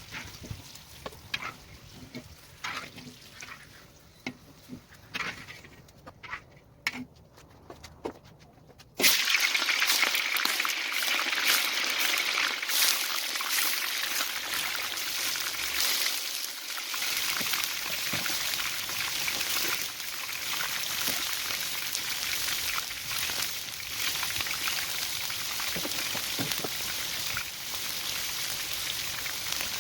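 A few scattered clicks and knocks, then about nine seconds in a sudden loud sizzle of food hitting hot oil in a kazan. The sizzle carries on steadily with small crackles.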